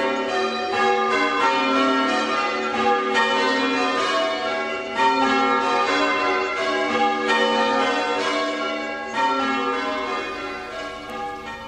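Church bells change ringing: a tower's bells sounding one after another in quick, even succession, each stroke ringing on. The ringing fades out near the end.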